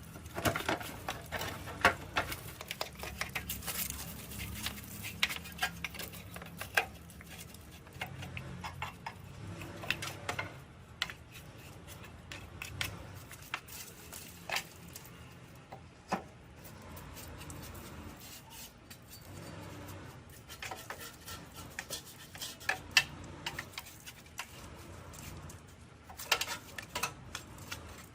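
Irregular light clinks, taps and knocks of metal hand tools and small metal parts being handled and worked, over a faint steady low hum.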